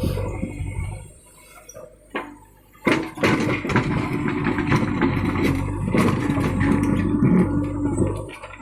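JCB backhoe loader's diesel engine running, then about three seconds in a sudden loud stretch of heavy clattering and rumbling as the machine works, lasting about five seconds before it drops back.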